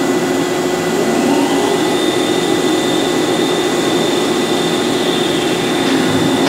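CNC lathe turning solid brass bar stock: a steady machine whir with a low hum, and a high whine that rises about a second in and then holds.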